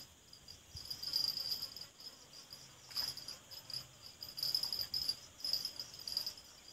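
Insects chirring in a high-pitched chorus that swells and fades in pulses.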